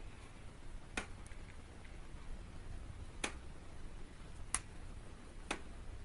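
Four sharp, irregularly spaced clicks over a faint low hum.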